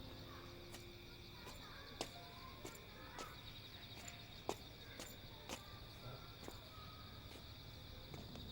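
Faint, steady chirping of crickets, with a scattering of sharp, irregular clicks over it.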